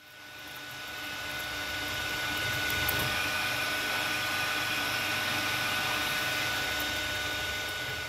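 Milling machine running with a steady hum and a constant high whine from the spindle drive, swelling up over the first couple of seconds.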